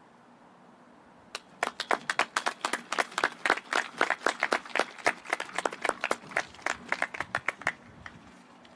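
A few people clapping their hands close by: quick, uneven claps that begin about a second and a half in and stop shortly before the end.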